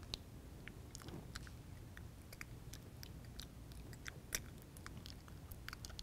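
Faint, irregular tiny clicks and crackles made at the mouth, imitating a shrimp chewing on food, with one slightly louder click past the middle. A low steady room hum lies underneath.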